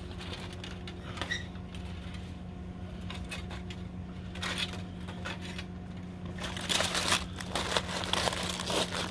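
Aluminium foil crinkling and rustling as it is handled and peeled back from a slab of cooked beef ribs, growing louder and busier in the last few seconds. A steady low hum runs underneath.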